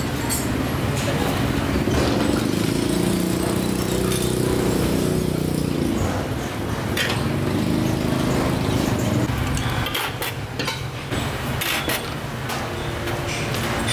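Motor engine from passing road traffic over a steady low rumble, louder twice in the middle, with a few clinks of the steel ladle against the pot and bowls.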